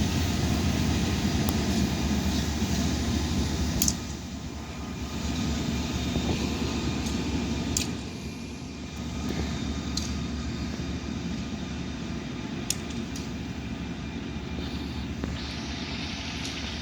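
Diesel locomotive engine working under load as the passenger train moves off, a steady low drone. It is loudest for the first four seconds, then drops, with a few faint clicks.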